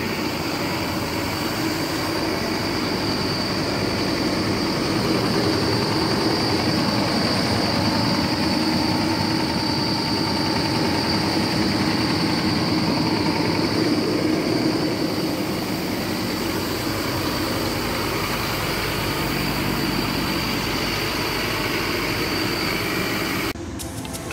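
Scania DC9 five-cylinder 9-litre diesel bus engine idling steadily, with a constant high whine over the engine note. The sound cuts away near the end.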